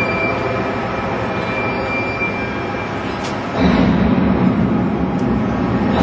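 Honeycomb paper machine running steadily with a thin whine. About three and a half seconds in it grows louder, with a heavier low hum.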